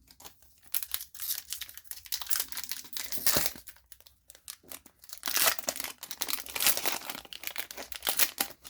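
Plastic wrapper of a 2021-22 Upper Deck hockey card pack crinkling and tearing as it is handled and opened, in two spells with a short lull about four seconds in.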